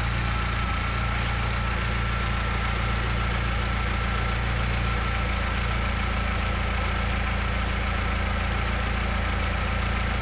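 Chevrolet Corsa 1.4's four-cylinder engine idling steadily, with a faint steady whine above the engine note.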